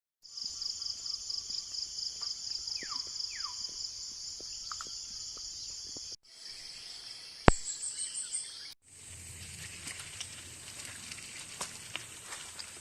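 Jungle insects buzzing in a high, rapidly pulsing chorus, with two short falling bird whistles about three seconds in. After an abrupt cut the insects go on with one sharp knock, the loudest sound, about halfway through. After another cut comes a steadier high insect drone over a low rumble, with scattered light clicks.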